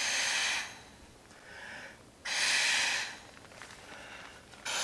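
A man blowing up an ultralight inflatable sleeping pad by mouth: three loud, hissing breaths about two seconds apart, with quieter blowing into the pad's valve between them.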